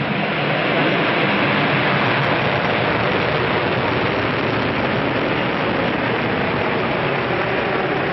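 Rocket lifting off: its engines and two strapped-on solid boosters make a loud, steady noise from ignition through the climb.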